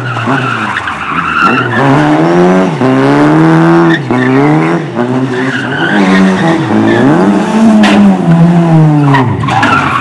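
Lada saloon rally car's engine revving hard, its pitch climbing and dropping over and over as the driver accelerates and lifts between tight turns, with tyres skidding on the dusty surface.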